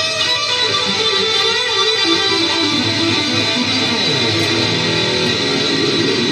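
Electric guitar played loud through an amplifier, a fast run of jammed notes and riffs.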